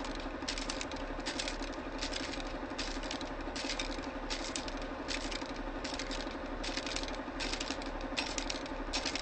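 Vintage film projector running: a fast, steady mechanical rattle over a low hum, with scattered clicks and crackles.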